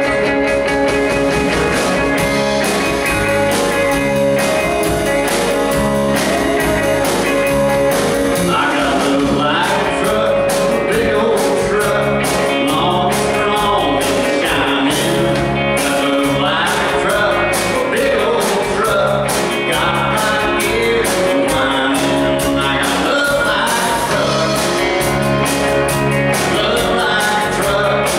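A live country-rock band playing a song on electric guitars, drums and keyboard, with a voice singing over it from about nine seconds in.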